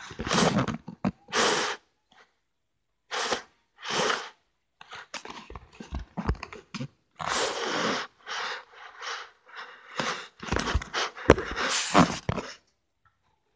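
A puppy playing with a plush toy: irregular short noisy bursts of huffing and snuffling mixed with the toy rustling, coming about once a second with gaps, busiest near the end.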